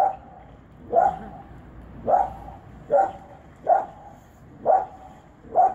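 A dog barking in play at an otter: seven short, loud barks, about one a second.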